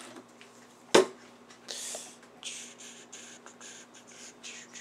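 A sharp click, then a run of about eight short hissing spurts, like squirts from an aerosol can of lubricant being sprayed onto a small electric motor during a rebuild.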